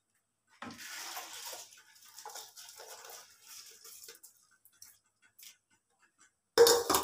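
Hands swishing soaked rice in water in a steel bowl to wash it: uneven watery rustling in spells. A sudden louder sound starts near the end.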